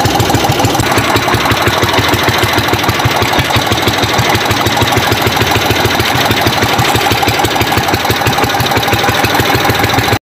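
Small fishing boat's engine running steadily with a fast, even throbbing beat and a steady whine over it; the sound cuts off abruptly near the end.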